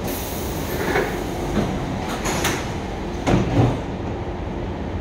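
Passenger doors of an SMRT C651 MRT train sliding shut, a few knocks and clunks ending in the loudest thud about three and a half seconds in as the doors close, over the steady rumble of the standing train.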